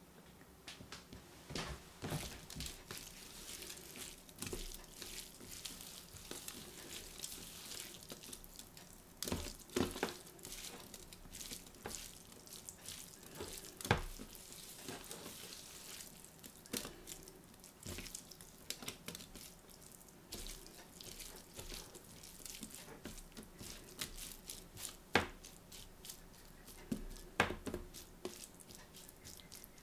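Raw beef strips, coated in oil and seasoning, being mixed and spread by hand on a metal tray: irregular wet squelches and smacks of meat, with a few sharper slaps now and then.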